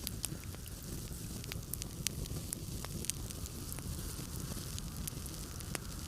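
Wood fire in a fireplace crackling, with irregular sharp pops and snaps over a steady low rumble of storm wind.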